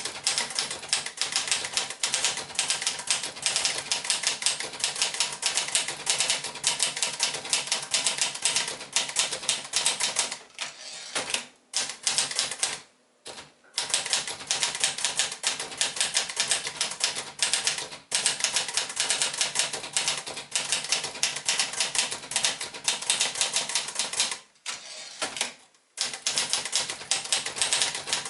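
Olivetti Lettera 35 metal-bodied manual typewriter being typed on at a fast, steady pace: a rapid run of typebar strikes with a few short pauses.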